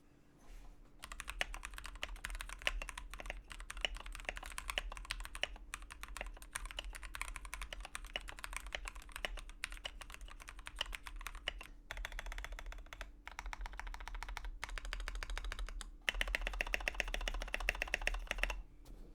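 Mechanical keyboard being typed on quickly, a dense run of key clicks and clacks that starts about a second in and gets louder and faster near the end.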